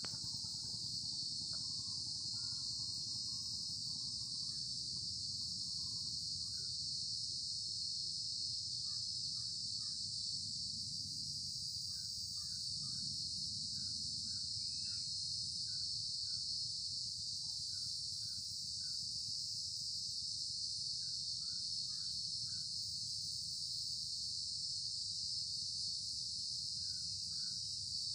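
Steady, shrill insect chorus of crickets or cicadas, with short bird chirps repeating in small groups over a low, steady rumble. There are no thunder claps.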